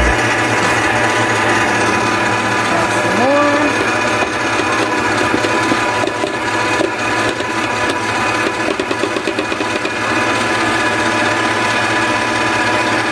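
Electric stand mixer running steadily, its flat beater working a butter-and-flour cookie dough in a metal bowl.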